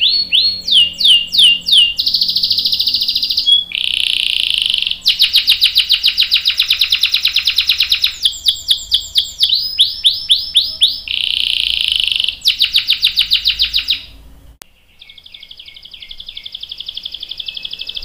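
Domestic canary singing a long, varied song: runs of quick falling whistled notes alternating with long, fast rattling trills (rolls). The song breaks off about 14 seconds in, then a softer trill starts again.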